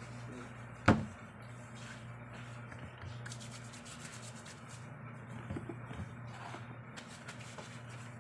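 Hands rubbing, with one sharp impact about a second in, over a steady low hum.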